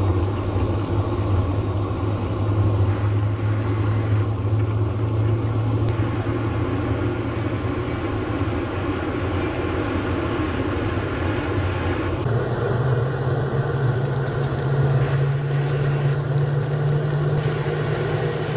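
Turbofan jet engine running with a steady low drone and rumble. About twelve seconds in the sound changes abruptly and the hum steps up to a higher pitch.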